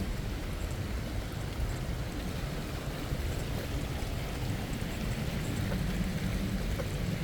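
Outdoor wind rumbling and buffeting on the microphone over a steady hiss, with a low hum growing near the end.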